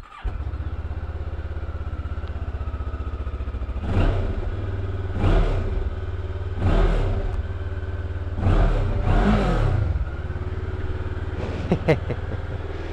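Kawasaki ER-6f (Ninja 650R) 649 cc parallel-twin engine starting up and settling into a steady idle, then revved in five short throttle blips between about four and ten seconds in, sounding loud inside a small shed. Two sharp clicks near the end.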